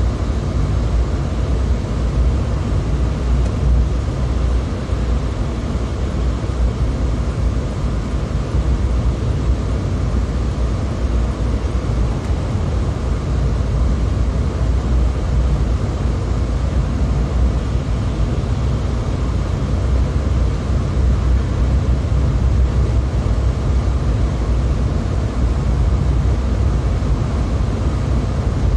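Steady low rumble of a car on the move: engine and tyre noise at an even speed, with no change through the stretch.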